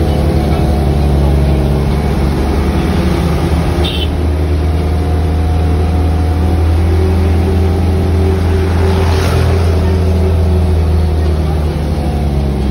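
An engine running steadily with a loud low drone, with a brief higher-pitched sound about nine seconds in.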